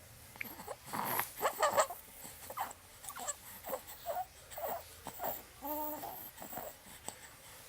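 Young infant making short fussy grunts, whimpers and noisy breaths in irregular spurts, with one brief pitched coo about six seconds in.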